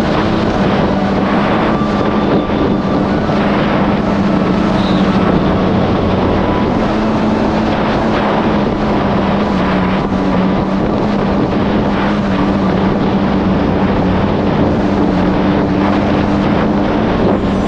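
Supercharged four-cylinder engine of a Yamaha GP1800R SVHO jet ski running at a steady, high cruising speed, its drone held at an even pitch throughout, over a dense rush of wind and water.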